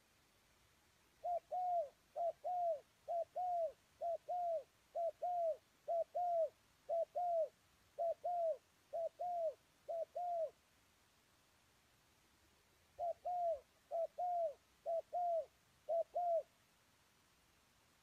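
Spotted dove cooing: a run of about ten two-note coos, each a short note then a longer falling one, about one a second, then a short pause and four more.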